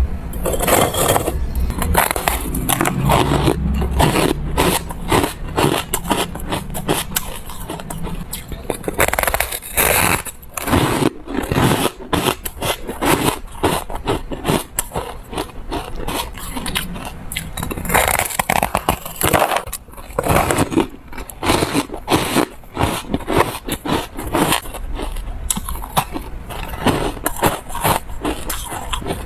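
Frozen ice coated in buckwheat powder being bitten, crunched and chewed close to a clip-on microphone. The result is a dense, irregular run of crackles and crunches, with scraping as the frosty blocks are handled in a plastic tub.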